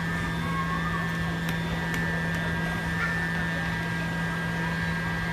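Steady machine hum with a constant high whine over it, unchanging throughout, with a couple of faint clicks about one and a half and two seconds in.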